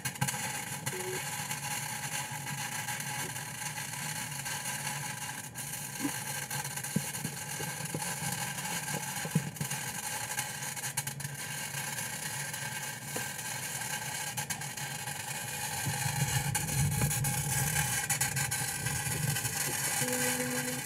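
Flux-cored wire-feed welder arc crackling and sizzling steadily as a bead is laid, with a dense spatter of tiny pops. It grows a little louder about three-quarters of the way through.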